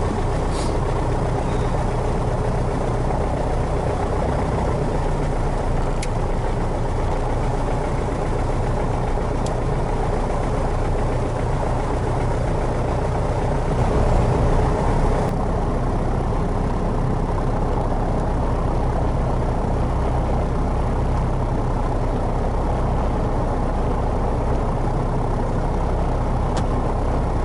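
Piper Cherokee's four-cylinder Lycoming engine and propeller idling steadily just after start-up, with a brief small rise in level near the middle.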